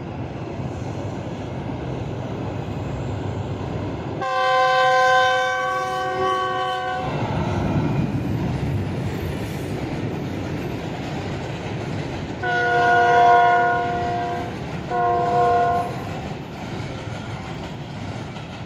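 Locomotive horn of a passing train sounding three times over the train's steady running noise. There is one long blast of about three seconds about four seconds in, then a shorter blast and a brief one close together around thirteen to sixteen seconds in.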